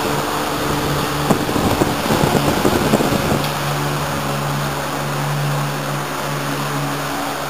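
A machine running steadily: a low hum with hiss over it, with some irregular rattling from about one to three and a half seconds in.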